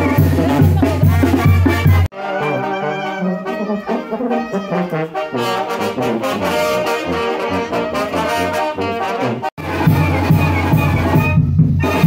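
Brass band playing, trumpets and trombones over a sousaphone bass. The sound cuts abruptly about two seconds in and again about three-quarters of the way through, and the middle stretch is lighter in the bass.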